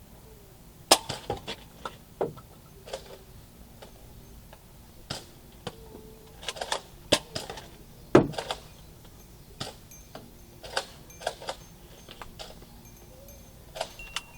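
Irregular sharp clicks and knocks from a Nerf dart battle under way, the loudest about a second in and about eight seconds in.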